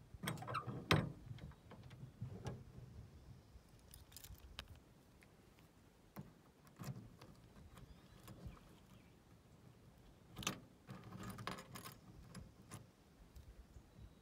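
A key being inserted into and turned in the lock of a 1953 DeSoto station wagon's chrome hatch-window handle: scattered metallic clicks and scrapes of key on lock, with the sharpest click about a second in and a cluster of clicks around ten to twelve seconds in.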